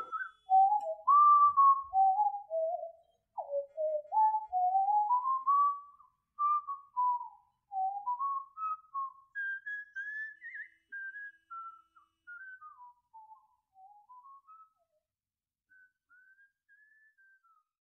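A person whistling a wandering tune of short sliding notes, growing steadily fainter and fading out near the end.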